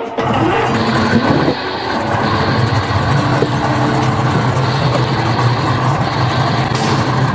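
Speedboat's outboard motor running with a steady low drone.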